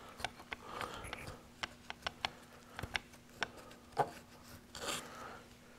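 A cloth rag and a small metal tool scratching and rubbing inside a Remington 1100 shotgun's receiver as the action is wiped clean, with scattered small clicks of the tool against the metal. Faint throughout.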